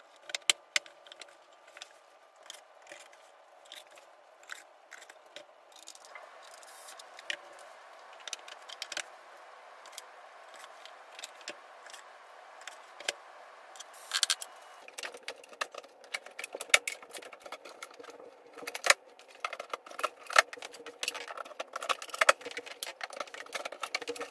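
Irregular clicks, taps and light knocks of small metal hardware and wooden drawer parts being handled during dresser assembly, busier and louder in the second half.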